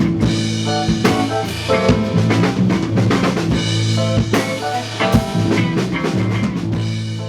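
Rock music with a full drum kit (kick, snare and rimshots) over sustained bass and guitar notes, getting quieter toward the end as it fades out.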